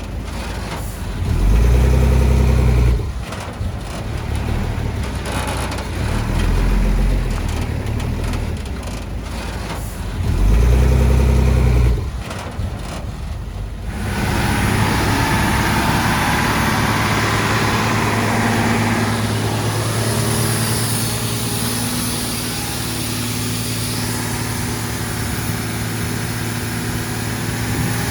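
Heavy diesel earth-moving machinery working. The engine surges loudly three times under load in the first half, then runs steadily with an even drone.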